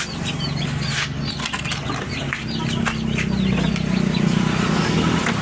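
Ambient sounds of an open workshop. Birds, likely chickens, chirp over and over, and a steady low motor hum rises slightly in pitch partway through. A few light clicks come from wires and circuit-board parts being handled.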